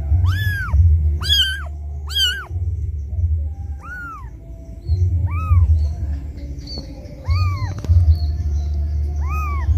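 Newborn kitten crying for its mother: seven high, piercing mews, each rising and then falling in pitch, at irregular intervals of one to two seconds, over an on-and-off low rumble.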